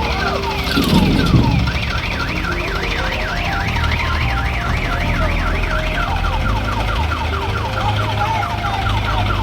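Electronic siren-style warning alarm cycling through patterns: repeated falling wails, then a fast up-and-down yelp for a few seconds, then falling wails again, over diesel engines running. A brief louder rumble comes about a second in.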